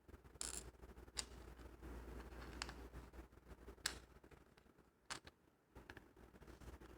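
Faint, irregular small clicks and ticks of metal lock parts and tools being handled as a Mul-T-Lock Junior cylinder's pins are taken out, about five sharp clicks a second or so apart.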